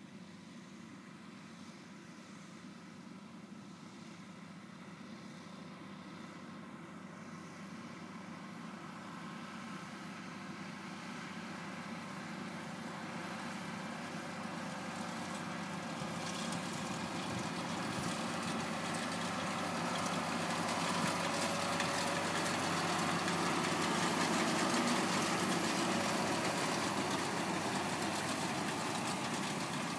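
A vehicle engine running steadily, growing gradually louder through most of the stretch and easing slightly near the end.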